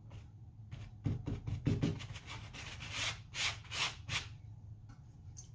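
Natural-bristle dish brush scrubbing wet bleach solution into a denim jacket collar in a run of short back-and-forth strokes.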